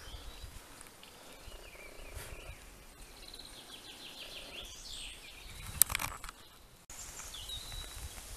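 Small birds chirping, with one stretch of quick repeated trills, over a low rumble on the microphone. A single sharp click about two-thirds of the way in is the loudest sound.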